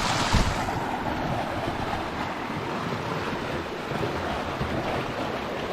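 Creek water rushing steadily beneath a log crossing, with a single knock about a third of a second in.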